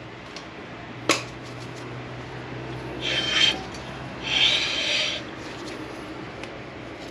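Work on a car's rear brake caliper: one sharp knock about a second in, then two short rasping scrapes, the second a little longer.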